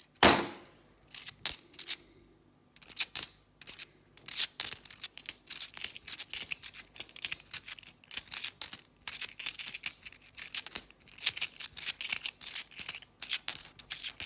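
UK cupronickel 50p coins clinking against one another as they are thumbed one by one through a handful. The clicks are rapid and irregular with a light metallic ring, sparse at first and near-continuous from about four seconds in. A single dull knock comes right at the start.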